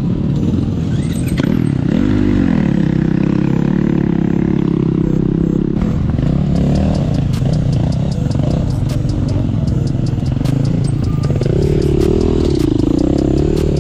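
Off-road motorcycle engines running, with the pitch rising and falling as a throttle is blipped about two seconds in and again near the end.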